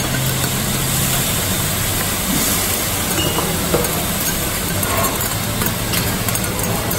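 Mutton, onions and a dark sauce sizzling steadily on a hot steel teppanyaki griddle, with metal spatulas scraping and tapping the plate now and then as the food is stirred.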